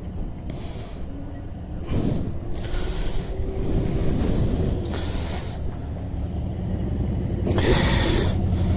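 Motorcycle engine running at low speed while being manoeuvred into a parking space, its rumble growing louder toward the end, with short bursts of rushing noise, the loudest one near the end.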